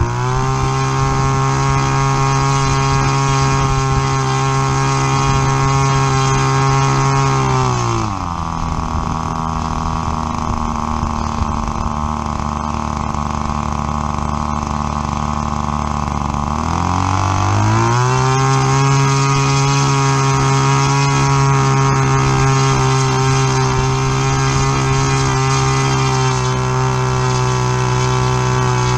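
New model airplane engine and propeller being run in: it runs steadily at high speed, is throttled back to a lower speed about eight seconds in, then opened back up about nine seconds later and held steady again.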